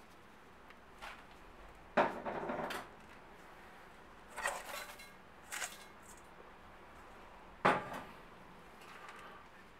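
Metal containers knocking and clattering against the stainless steel bowl of a bowl cutter as seasonings and crushed ice are tipped onto minced meat: a few separate clanks with short rattles, the loudest about two seconds in and again near eight seconds. The cutter itself is not running.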